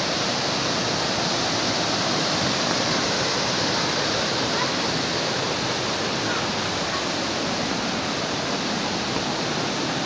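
Waterfall: white water rushing steadily over a series of rocky cascades into a pool.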